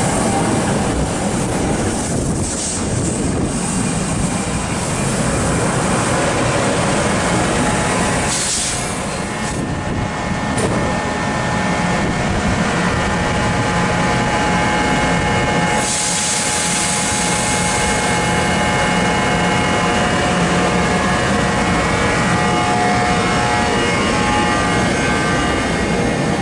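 A train running past close by: the wheels rumble steadily on the rails, and steady whining tones come in about halfway through.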